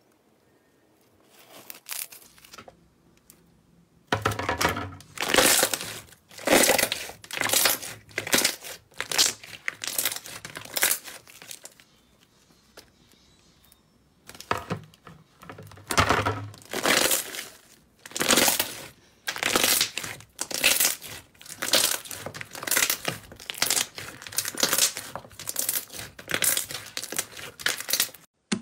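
Hands squeezing, pressing and kneading clear slime: a run of short, sharp squishing bursts, one to two a second, with a quiet spell of a couple of seconds midway.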